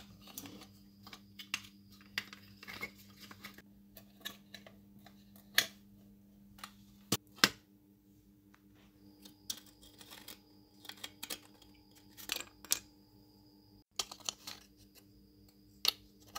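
Irregular clicks, taps and a few sharper knocks as rusted parts of a diecast model car are handled, pulled apart and set down on a wooden table, over a faint steady hum.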